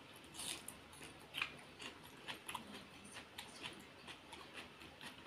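A person chewing a mouthful of egg curry and rice eaten by hand, faint, with a few wet mouth clicks and smacks a second, the loudest about a second and a half in.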